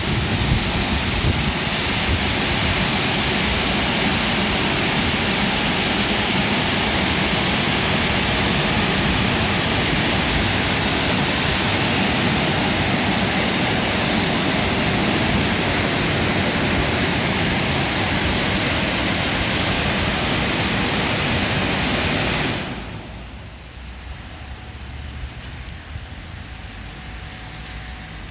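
WashTec SoftCare Pro car wash air dryer blowers running with a steady rushing blast, then cutting off suddenly about 23 seconds in, leaving a quieter low rumble as the drying stage ends.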